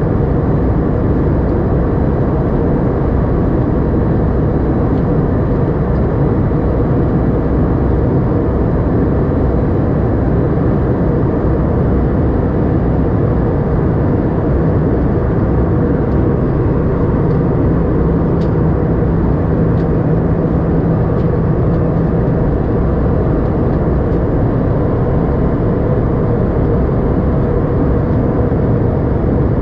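Steady cabin noise inside an Airbus A320 airliner in flight: a constant low rush of airflow and engine noise. A faint steady hum joins for several seconds near the middle.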